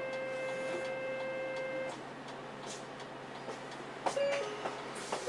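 Inside a route bus: a steady electronic tone sounds for about two seconds and stops, over the bus's running noise. A few clicks and short beeps follow near the end.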